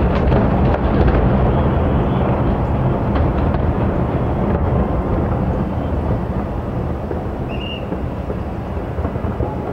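Aerial firework shells bursting in quick succession, their booms merging into a continuous low rumble that eases off slightly toward the end.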